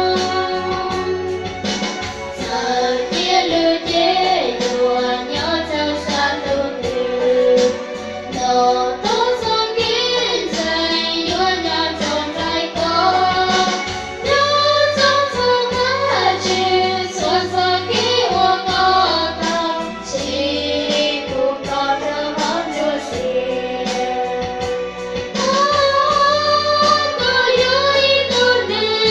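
Two young women singing a song in Hmong together through handheld microphones, over an amplified instrumental accompaniment with low bass notes and a steady beat.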